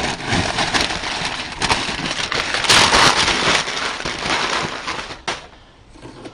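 Masking paper crackling and rustling as it is pulled off a freshly sprayed panel and crumpled. It is loudest about three seconds in, then dies away after a last sharp crackle near the end.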